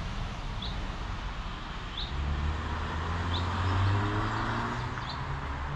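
A road vehicle passing by, its engine and tyre noise swelling to a peak about four seconds in. Over it a bird repeats a short, high chirp about every second and a half.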